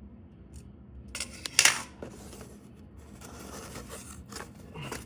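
Smoke detector packaging being handled: two sharp crinkling rustles about a second and a half in, then quieter, uneven rustling and scraping.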